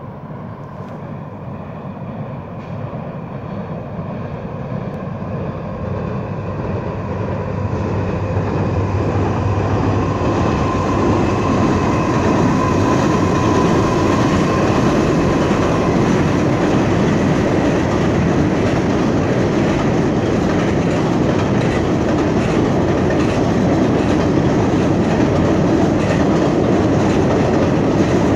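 A Canadian National and an Illinois Central diesel locomotive hauling a double-stack container train across a steel trestle bridge. The sound grows louder over the first ten seconds as the locomotives approach and pass overhead. After that come the steady rumble and clatter of the container cars' wheels rolling over the bridge.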